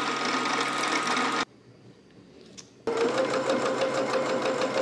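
Pfaff Ambition 620 sewing machine topstitching through layers of denim. It runs in two spells: about a second and a half of stitching, a pause of about a second and a half, then a fast, even needle rhythm.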